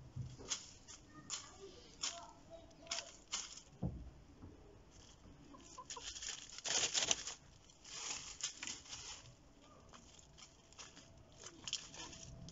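Domestic hens scratching and pecking through dry leaf litter, making irregular short rustles of crisp leaves, with soft clucking. The longest, loudest rustle comes about seven seconds in.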